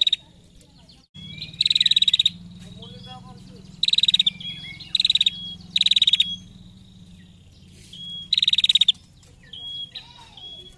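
Female prenjak giving its 'ngetir' call: short thin whistles, each followed by a loud, rapid rattling trill about half a second long, repeated about six times. A low steady hum runs underneath from about a second in.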